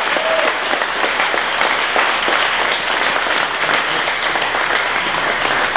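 A crowd applauding steadily, many hands clapping at once, with a brief cheer right at the start.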